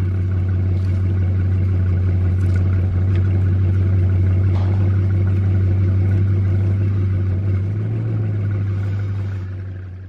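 Bugatti Chiron's quad-turbocharged W16 engine running steadily with a deep, even drone. Its pitch lifts slightly about eight seconds in, and the sound fades out at the end.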